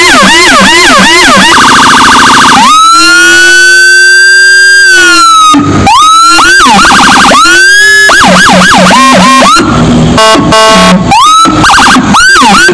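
Whelen electronic siren through an SA314B speaker, switched through its tones: fast yelp sweeps, a brief rapid stutter, one long slow wail rising and falling, then quick sweeps again and a choppy pulsing tone near the end. At times a much lower copy of the tone, the Howler low-frequency siren, sounds underneath.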